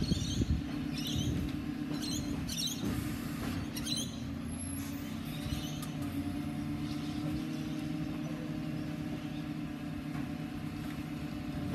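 Garbage truck engine running steadily at a distance, a low, even hum. Birds chirp briefly several times in the first few seconds.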